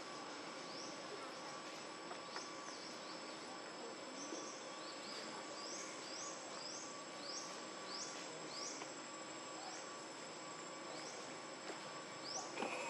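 Steady chorus of insects with a continuous high-pitched drone, over which short rising chirps repeat, several a second from about four to nine seconds in. A brief sharp click comes near the end.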